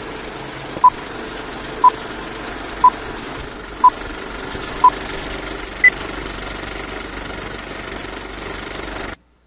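Old-film countdown leader sound effect: a short beep once a second, six times, then a single higher beep, over a steady mechanical rattle and hum like a running film projector. The rattle cuts off suddenly near the end.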